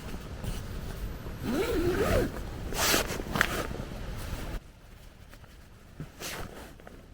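Tent zipper pulled in a few quick strokes, over wind buffeting the microphone that drops away about four and a half seconds in, with a brief wavering whine about two seconds in.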